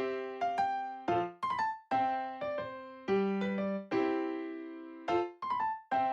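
Background music: a light keyboard tune of struck, decaying piano-like notes in a steady rhythm.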